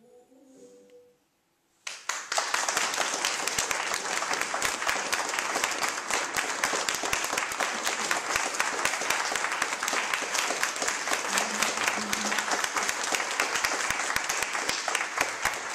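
Audience applauding: clapping breaks out about two seconds in and goes on steadily.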